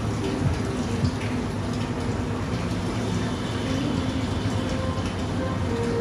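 Water running steadily in a cold plunge tub, with a faint hum underneath.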